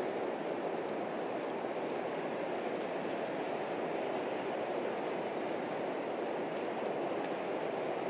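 Steady, even rushing of water along a river shore, with a few faint ticks scattered through it.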